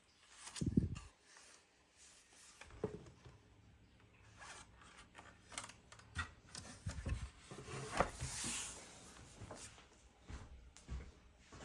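Hands handling the packaging of a die-cast model car during unboxing: irregular rubbing and scraping with scattered clicks and small knocks, and a longer scrape about eight seconds in.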